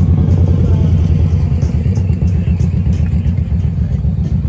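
Motorcycle engine running nearby with a steady, low, fast-pulsing rumble.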